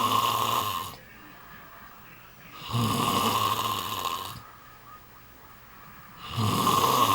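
Eight-month-old baby snoring in sleep, one snore about every three and a half seconds: one fades out at the start, one full snore falls in the middle, and another begins near the end.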